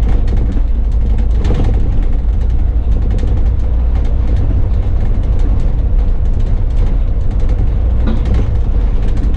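Bus running on the road, heard from the driver's cab: a steady low engine and road rumble with a faint constant hum and light rattles.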